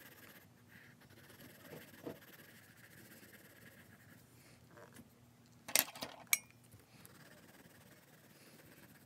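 Quiet room tone broken by two sharp clinks of small hard objects about half a second apart a little past halfway, the second ringing briefly. There are a couple of softer taps about two seconds in.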